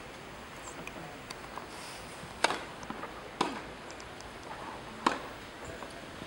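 Tennis racket strings striking the ball: a serve about two and a half seconds in, then returns in a rally, four sharp hits in all, spaced about one to one and a half seconds apart.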